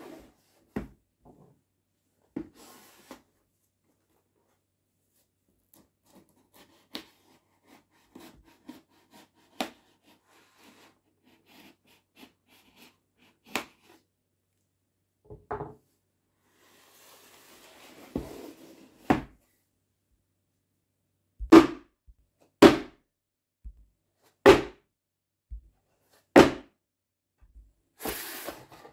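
Cardboard shipping box being handled and cut open with a knife: scattered taps and scrapes, a stretch of scraping as the blade runs along the packing tape, then several sharp knocks one to two seconds apart and rustling cardboard near the end.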